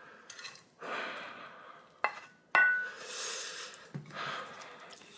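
Heavy breaths in and out through a mouth burning from spicy food, with two sharp clinks of a spoon against a bowl a little after two seconds in, the second one ringing briefly.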